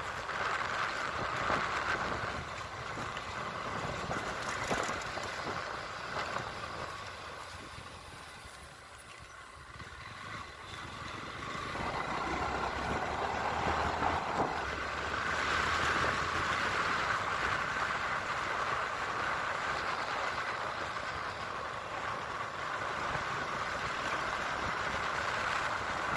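Motorcycle riding along a rough dirt road: engine running under wind and road noise. It goes quieter for a couple of seconds about eight seconds in, then picks up again.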